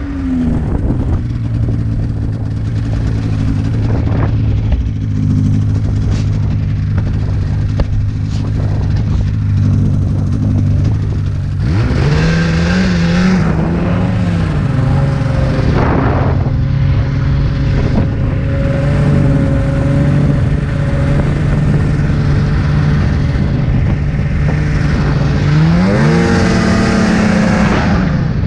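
Snowmobile engine running under load through deep snow. It holds a steady pitch, revs up about twelve seconds in and holds there, then revs up and back down near the end, with wind and snow hiss over it.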